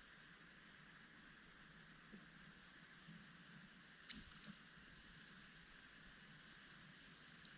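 Faint outdoor hush with a few brief, high-pitched chip notes from small songbirds at a feeder: one about three and a half seconds in, a quick cluster just after four seconds, and one near the end.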